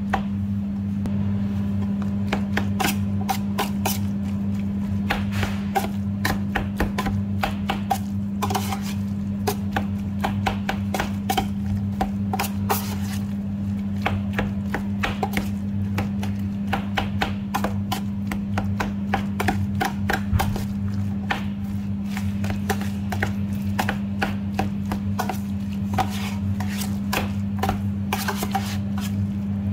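Metal spoon clicking and scraping against a stainless steel pan while mashing and stirring guacamole: many quick, irregular clicks over a steady low hum.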